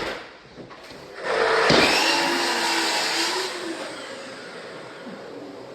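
Whirring, rushing noise of a motor-driven tool starting about a second in after a sharp knock, loud for about two seconds, then easing to a lower steady run.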